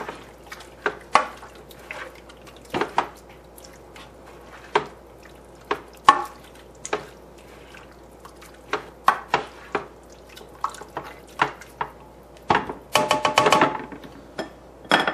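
A spoon stirring thick, wet buffalo chicken dip of shredded chicken, cream cheese and hot sauce in a slow cooker crock. Irregular wet squelches and clicks of the spoon against the pot, with a denser run of scraping about two seconds before the end.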